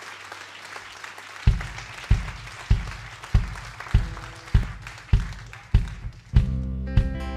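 Audience applause dying away under a steady live drum beat, a low thump about every 0.6 seconds, that starts a second and a half in; near the end the band comes in with guitars and bass over the beat.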